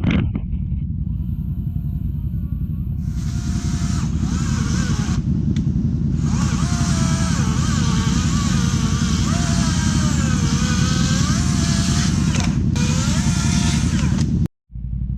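Chainsaw cutting through a tree trunk, its motor pitch sagging and recovering under load, over a steady low rumble. It stops briefly a few times and cuts out abruptly near the end.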